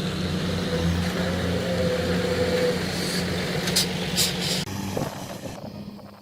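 Heavy diesel engine of earthmoving machinery running steadily with a low hum. Two sharp ticks come about four seconds in, and the sound changes abruptly shortly after.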